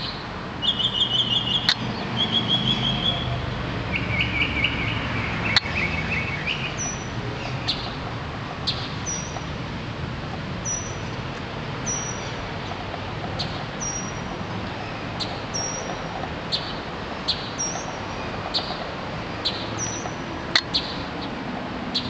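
Wild songbirds singing: a few rapid trills in the first five seconds, then a short, high note repeated about once a second, with scattered brief chirps, over a low steady background rumble.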